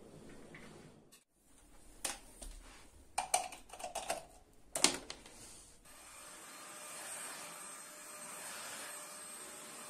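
Several sharp knocks and clicks of things being handled, the loudest near the middle. Then a steady hissing whir sets in and runs on.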